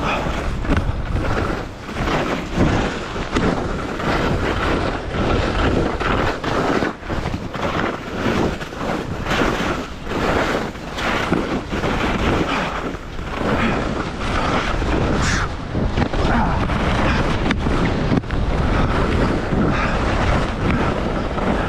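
Wind rushing and buffeting over a GoPro's microphone while skiing downhill at speed, mixed with the hiss and scrape of skis on snow through irregular turns.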